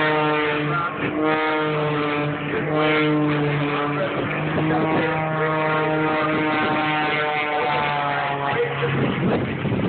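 Modified Pitts S-2S aerobatic biplane with a 400 hp Lycoming engine flying overhead: a loud, steady engine-and-propeller drone whose pitch shifts slightly with power changes, easing off near the end.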